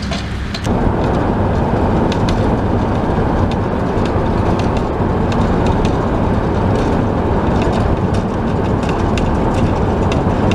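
A vehicle driving over a rough road: steady rumbling road and tyre noise that grows louder about a second in, with scattered small clicks and rattles.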